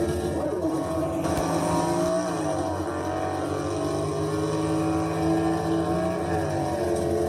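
Car engines running and revving, with the pitch slowly rising and falling.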